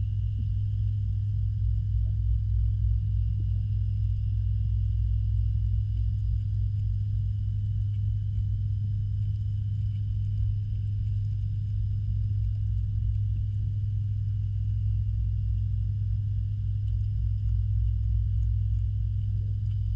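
Steady low hum and rumble of a pond pump and filtration system, heard through an underwater microphone, with a faint steady high whine above it.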